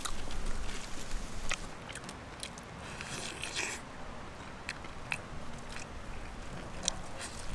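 A person chewing and biting into a roasted chicken leg close to the microphone, with scattered sharp, wet clicks and short crackly bursts from the mouth and the meat.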